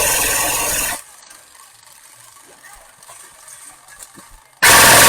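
Airsoft electric gun firing long full-auto bursts, its gearbox cycling rapidly in a dense mechanical whir: one burst cuts off abruptly about a second in, and another starts suddenly near the end.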